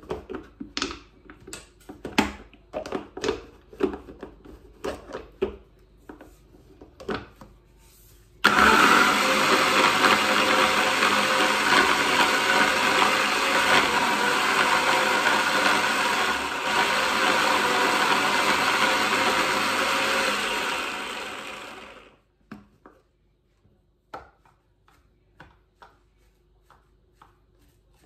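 Bosch hand blender's motor running in its chopper bowl, chopping parsley for pesto: it starts suddenly about a third of the way in, runs steadily for about thirteen seconds, then spins down. Before it, a run of clicks and knocks as the chopper lid and motor unit are handled.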